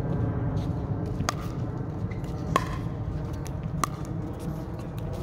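A pickleball rally: paddles hitting the hard plastic ball, each hit a sharp pop with a short ring, about every 1.3 seconds, over a steady low rumble.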